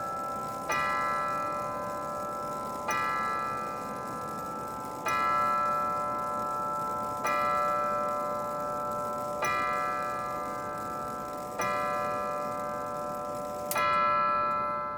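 Howard Miller J.H. Miller II grandfather clock's tubular chime striking the hour: the same tube struck seven times, about one stroke every two seconds, each ringing on into the next.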